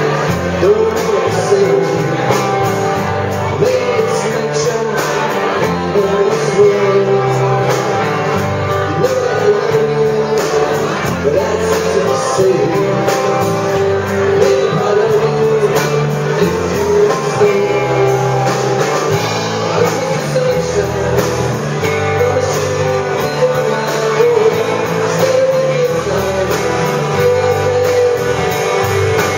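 Live band music: strummed acoustic guitars over a drum kit with a steady cymbal beat, and a man singing the melody.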